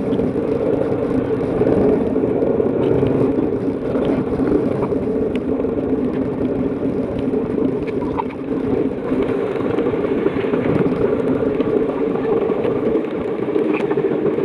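Suzuki motor scooter's engine running steadily as it rides along at low speed, a constant hum.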